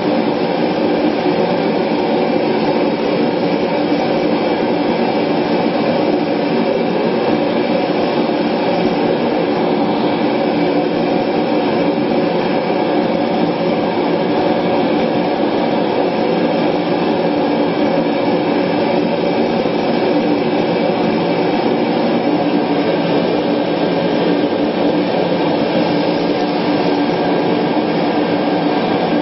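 Gas-fired forge burner running with its flame lit, a steady unbroken noise, while a clay-coated blade heats in it for the quench.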